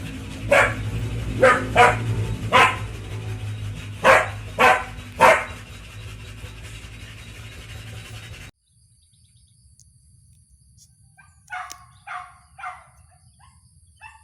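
Hunting dogs barking: seven sharp barks in the first five seconds over a low steady hum. After an abrupt cut about eight seconds in, a quieter stretch holds three more barks and a short one near the end.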